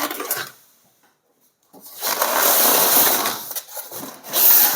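Box packaging rubbing and scraping as a heavy mitre saw is worked out of it: a short scrape, about a second of quiet, then about three seconds of continuous scraping that is loudest near the end.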